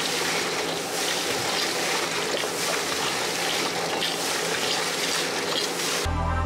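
Steady rushing noise of wet concrete flowing out of a pump hose into a foundation trench. Music starts abruptly near the end.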